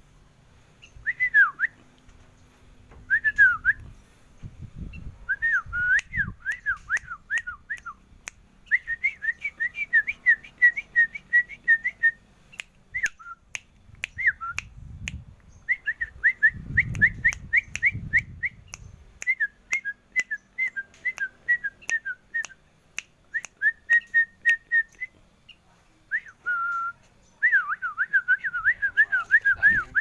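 A caged songbird singing in phrases of quick, clear whistled notes that swoop up and down, with short pauses between phrases. A few dull low thumps sound around five and seventeen seconds in.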